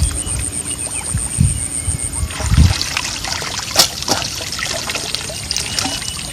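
Water trickling and pouring, with a couple of dull thumps in the first few seconds and a sharp click a little later.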